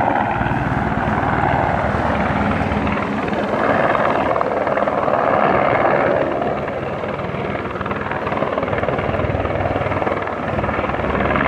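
Medevac helicopter flying low overhead on its approach to land, with the steady, rapid chop of its rotor blades. It is a little quieter past the halfway point, then picks up again near the end.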